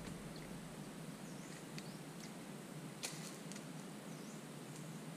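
Faint outdoor ambience: a steady low hiss with a few short, high bird chirps that dip and rise in pitch, and a single sharp click about three seconds in.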